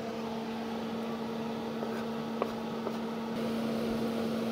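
Steady low hum of a running appliance or fan, with a couple of faint clicks as sliced mushrooms are tipped into a cast iron skillet.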